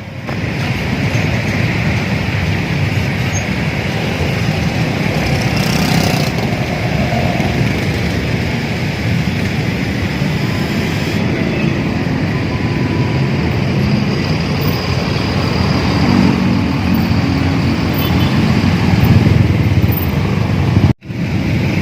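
Steady road traffic: the engines and tyres of passing vehicles, with buses and motorcycles among them, running continuously with no horn standing out.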